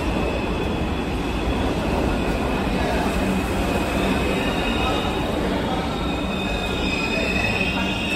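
An R62 New York subway train pulls into the station at speed, its wheels running on the rails in a steady loud rumble. A high squeal of wheels and brakes builds near the end as it slows to a stop.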